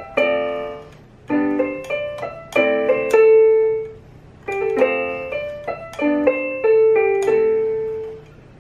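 RiZKiZ ys-a14948 electronic keyboard on a piano voice, played with both hands: chords with melody notes above, struck about every second or so. The last chord is held and fades out near the end.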